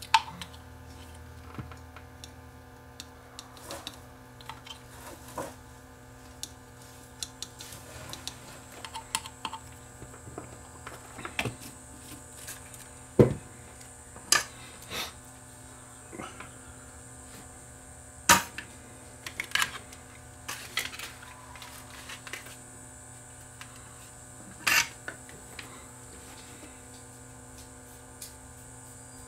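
Scattered light clicks and taps, a few of them sharper, from small tools and parts being handled on a workbench during circuit-board prep, over a steady faint electrical hum.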